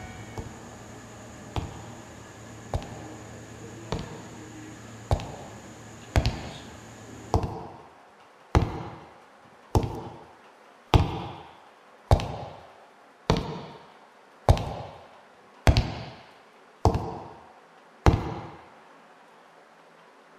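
Slow, evenly spaced knocks on a wooden door, about one every second and a bit, growing louder, each with an echoing tail. A steady hum underneath cuts out about seven seconds in.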